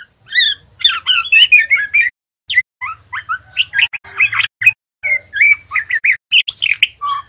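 Juvenile male white-rumped shama twittering a fast run of varied chirps and short gliding whistles in bursts, with brief pauses about two and five seconds in. This is the rambling 'ngeriwik' subsong of a young bird learning to sing.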